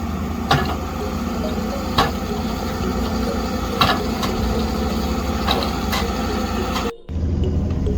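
An engine running steadily, with a sharp knock about every one and a half seconds; the sound cuts off abruptly about seven seconds in and another engine sound picks up.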